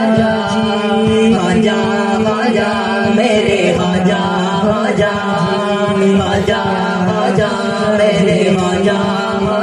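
Qawwali singing: a lead male voice and a chorus of young male voices chanting a devotional refrain in long held notes, over a steady hand-drum beat.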